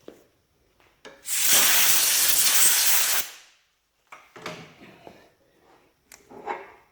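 A two-second hiss of compressed air from a shop blow gun, blowing drilling chips off a freshly drilled steel fixture, followed by a few light knocks of the metal piece being handled.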